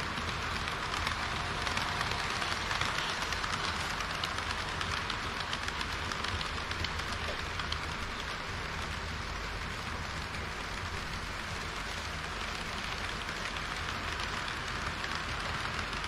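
HO-scale model trains running on the layout's track: the metal wheels of a long rake of tank wagons rolling steadily over the rails, a dense patter of fine clicks over a constant rolling hiss.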